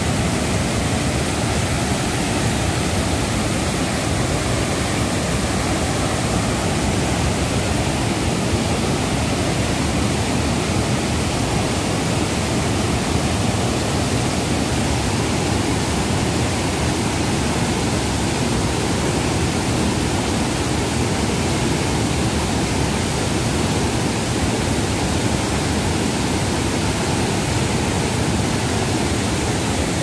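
Waterfall plunging into a rocky pool and rushing white water below it: a loud, steady, even roar of falling water.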